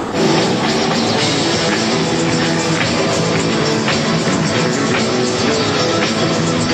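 Rock music with drums and guitar, cutting in suddenly at the start and running at a steady level.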